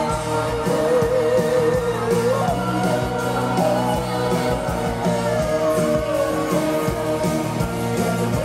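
Live pop music through an arena's sound system: female voices hold long sung notes with vibrato over a steady band and beat.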